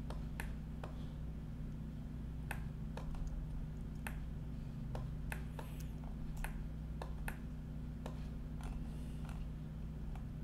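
Irregular sharp clicks from a computer mouse and keyboard, about a dozen spread through the stretch, over a steady low hum.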